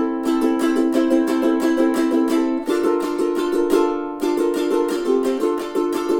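Flight Voyager all-solid wide-neck tenor ukulele strummed unplugged, in a quick steady strumming pattern of about four or five strokes a second, with the chord changing every second or so.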